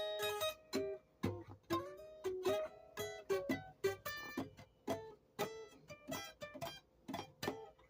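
Music: a plucked string instrument playing a melody of picked single notes, each ringing and fading.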